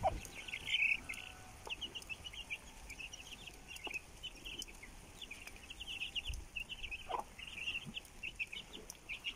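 Chicks peeping continuously in quick, short, high notes, with a hen clucking softly now and then.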